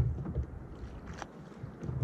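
Uneven low rumble of wind on the microphone out on a fishing kayak, with a few short light knocks, one about a second in.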